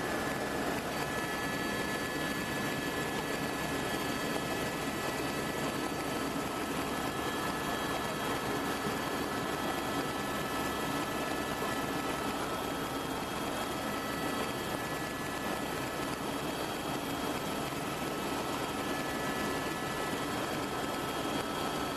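Helicopter in flight, heard from inside the cabin: a steady engine and rotor drone with faint, steady high whining tones.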